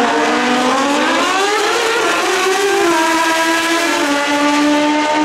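Two Pro Street drag motorcycles launching off the start line side by side. The engine note climbs steeply for about two seconds, drops at a gear change, then holds high with further small steps as the bikes pull down the track.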